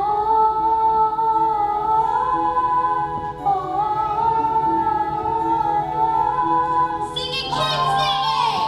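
A singer holding long, slightly wavering notes over instrumental accompaniment in a stage musical. Near the end a run of higher notes sweeps downward over the singing.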